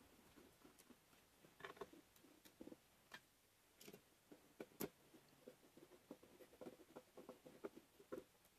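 Faint, irregular clicks and light scraping of a hand screwdriver turning a screw through a steel tube stool frame into a plywood seat, with a few sharper clicks.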